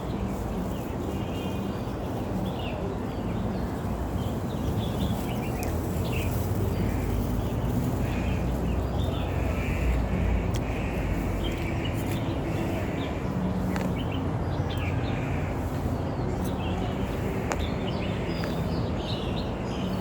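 Birds chirping, many short calls scattered throughout, over a steady low rumble of background noise.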